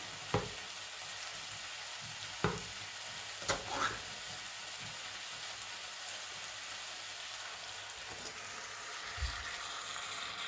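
Chicken and potatoes sizzling in a steel pot, a steady hiss, with a few sharp clicks and taps in the first four seconds as a can of coconut milk is opened. Near the end the sound thickens as the coconut milk pours into the hot pot.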